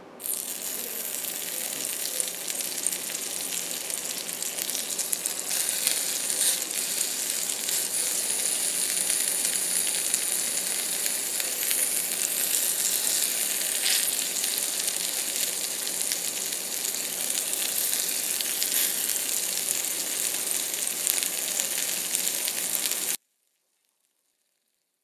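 Small pieces of bacon frying in a tiny cast iron skillet greased with cooking spray: a steady sizzle with fine crackles, starting the moment the bacon hits the hot pan and cutting off suddenly near the end.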